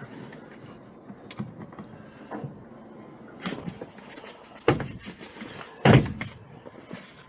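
A series of knocks and thumps with handling noise in between; the two loudest come about five and six seconds in.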